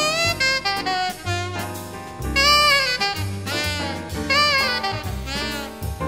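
Small-group jazz recording: an alto saxophone plays phrases of bending, wavering notes over a bass line and drums.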